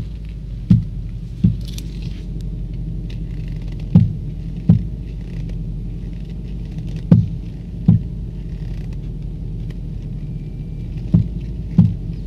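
A car knocking: a steady low running hum with dull knocks that come in pairs, about three-quarters of a second apart, four pairs a few seconds apart. The knocks are the fault the owner is showing.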